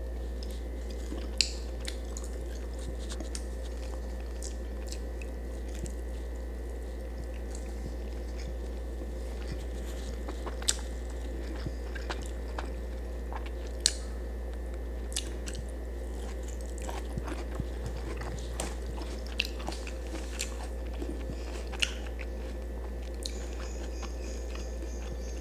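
A person chewing and biting food close to the microphone, with sharp mouth clicks and crunches scattered throughout, over a steady low hum.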